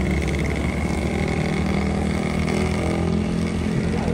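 Motorcycle engines running as road traffic goes past: a steady low hum whose pitch shifts slowly.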